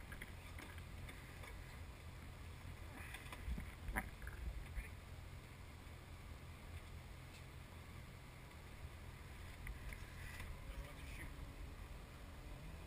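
Faint, muffled low rumble of a motorboat on the water. A few light knocks and clatters come around four seconds in and again near ten seconds.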